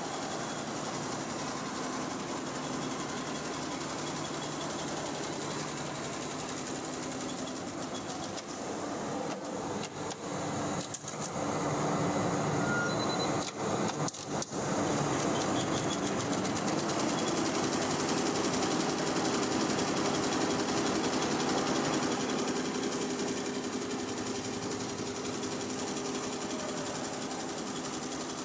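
Multi-head commercial embroidery machines stitching, from about the middle a Barudan: a dense, steady mechanical chatter from the needle heads. It gets louder about twelve seconds in.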